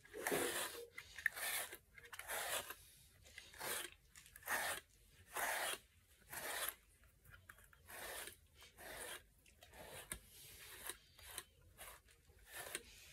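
Pin grooming brush dragged through a large dog's thick coat, a scratchy swish with each stroke about once a second. The strokes are louder at first and grow softer and shorter in the second half.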